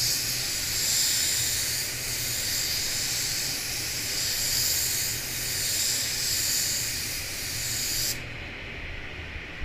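Gravity-feed spray gun hissing steadily as compressed air atomises white waterborne basecoat, with gentle swells as the gun sweeps along the panel. The hiss cuts off abruptly about eight seconds in, leaving a low steady hum.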